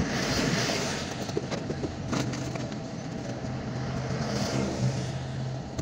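Inside a stopped car in the rain: a steady low idling hum under the hiss of traffic on wet pavement, with two louder swishes, near the start and about four and a half seconds in.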